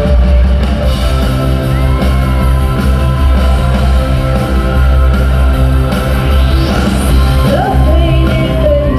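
Live 1980s pop band playing loudly with a singer, as heard from the audience.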